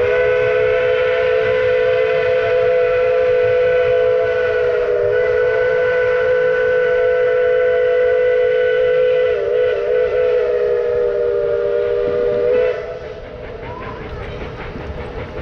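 Tweetsie Railroad No. 12, a Baldwin 4-6-0 steam locomotive, blowing its whistle in one long blast of about thirteen seconds, a steady chord of several notes that wavers briefly twice before cutting off. Fainter train noise carries on after the whistle stops.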